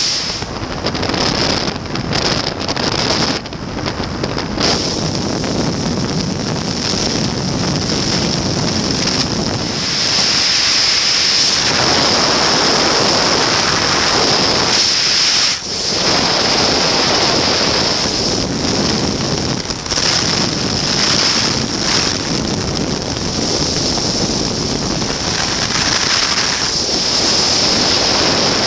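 Wind rushing over the microphone of an open flexwing microlight trike in flight, loud and uneven in gusts, with a brief dip about halfway through.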